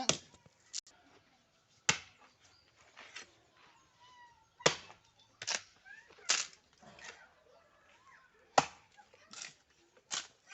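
Blade chopping into wood: sharp single strikes at irregular intervals, about nine in ten seconds, cutting a notch so a chip splits out cleanly.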